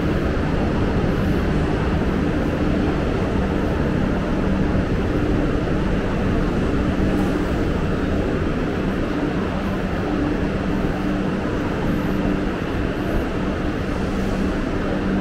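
Steady rumble of a railway terminus, with a low hum from the trains that fades in and out.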